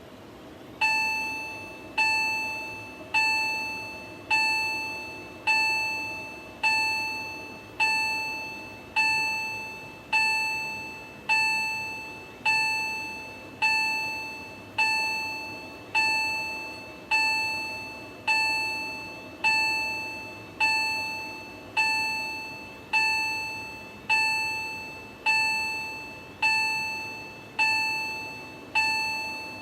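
Fire alarm sounding in single bell-like strokes, about one a second, each ring dying away before the next strike; it starts under a second in.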